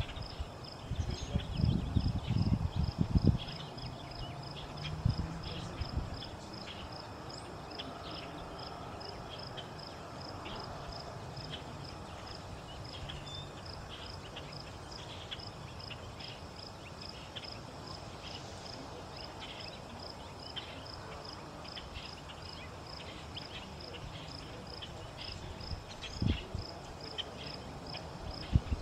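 An insect chirping steadily: short, high, evenly spaced chirps, several a second, with fainter scattered ticking from other insects. Low rumbling thumps in the first few seconds and again near the end.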